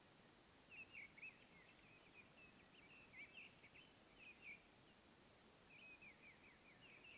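Faint bird song: rapid runs of short, high chirps in three phrases, over a steady faint background hiss.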